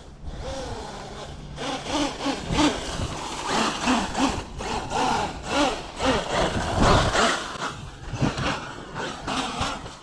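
Electric RC truck driven in repeated throttle bursts: its brushless motor whine rises and falls over and over, with tyres scrabbling on loose dirt.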